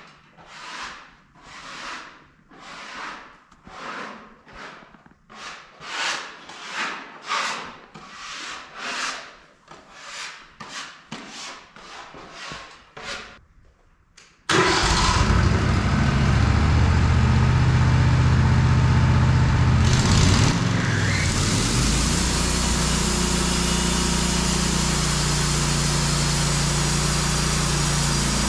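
A sawmill's engine starts abruptly about halfway through and runs steadily. Before it, a quick series of evenly spaced scraping or brushing strokes comes about one and a half a second.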